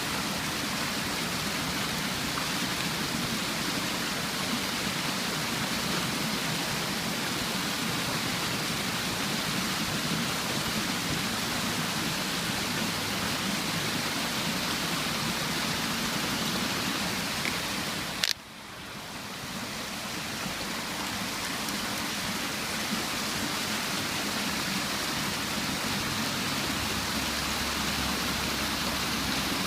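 Steady rush of a waterfall's running water. About two-thirds of the way through there is a sharp click, after which the sound briefly drops away and swells back.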